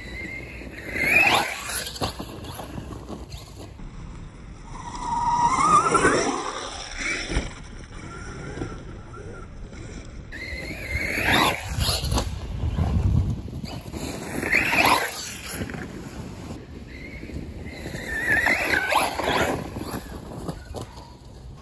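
Electric motor of an FTX DR8 radio-controlled truck whining as it is driven nearby, the pitch rising and falling with throttle and passes. It swells about a second in, around six seconds, and repeatedly from about eleven seconds on.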